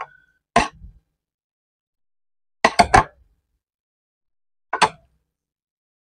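Close-miked eating and food-handling noises: a few short sharp clicks and smacks as boiled chicken is pulled apart with a spoon and fingers. There is one about half a second in, a quick cluster around three seconds in, and one more near five seconds, with silence between them.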